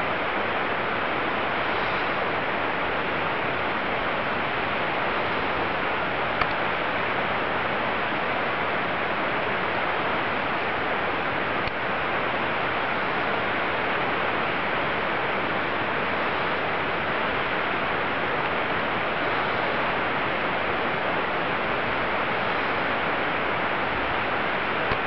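Steady rush of a mountain stream: an even, unbroken hiss of flowing water.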